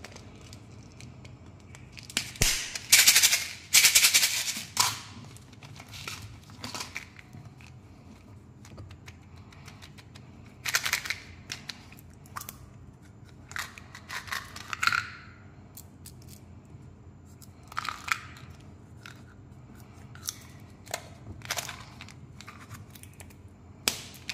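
Candy packaging handled by hands: plastic containers, caps and wrappers crinkling, clicking and snapping in short irregular bursts, loudest a few seconds in.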